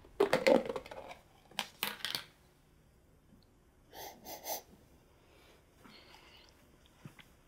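Paper lid peeled back on a paper food cup in a few short rustling tears, then three quick sniffs as the cup is smelled, about four seconds in.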